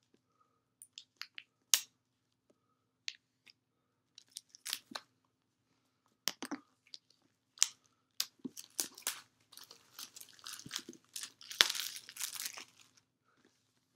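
Cardboard tablet box and its clear plastic wrap being handled during unboxing: scattered sharp clicks and scrapes, then a few seconds of dense crinkling of plastic film in the second half, loudest near the end.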